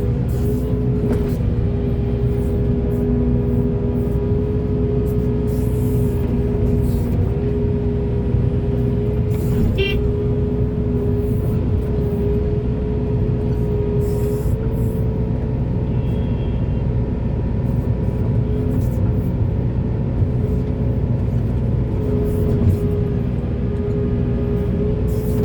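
Diesel engine of a large hydraulic excavator running steadily under working load, a constant low rumble with a steady droning hum on top.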